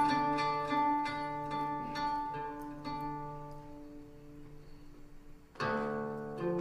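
Slow plucked-string instrumental music: held notes ring and die away almost to quiet, then a new, louder chord is struck about five and a half seconds in.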